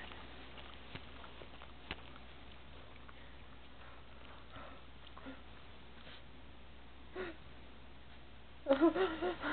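Boston terrier quietly chewing and licking, with faint wet clicks and a sniff here and there. Near the end a person's voice starts up loudly.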